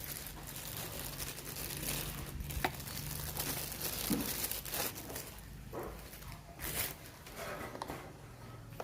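Rustling plastic handling noise with a few sharp clicks, as the battery pack of a cordless drill is changed and handled.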